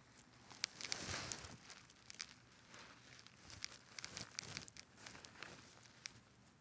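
Irregular rustling and crinkling with scattered sharp clicks and knocks, loudest about a second in.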